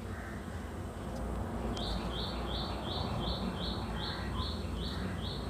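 A bird calling a run of about ten short, evenly spaced chirps, roughly two and a half a second, starting a little under two seconds in. A steady low hum runs underneath.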